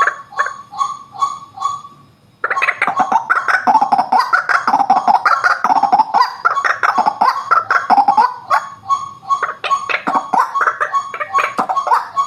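White-breasted waterhen calling: evenly repeated single notes, about three a second, break off briefly about two seconds in. A loud, dense run of jumbled calls follows, and near the end the repeated notes return among further bursts.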